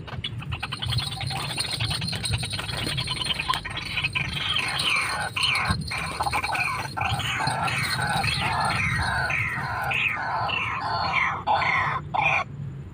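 White-breasted waterhen calling: a fast rattle, then harsh falling notes repeated about twice a second, cutting off abruptly near the end.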